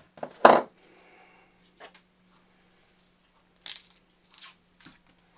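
Paper wrapping being torn and peeled off an Apple power adapter's UK plug by hand, in short crackly bursts, with a sharp knock about half a second in as a part is handled on the desk. A faint steady hum sits underneath.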